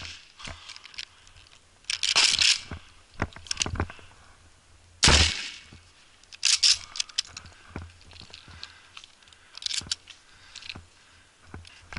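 Footsteps and brush rustling as a person walks through dry scrub and along a dirt track, in several short crunching bursts. About five seconds in comes one sharper, louder knock.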